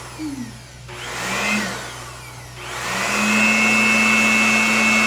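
Small handheld electric cleaning appliance, its motor whirring with a rising whine as it spins up, run in bursts: one about a second and a half long, then switched on again just under three seconds in and held running.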